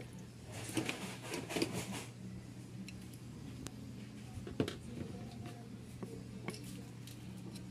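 Hand-work on a distributor's small parts: a second or so of scraping and rustling, then a few sharp metallic clicks, over a steady low hum.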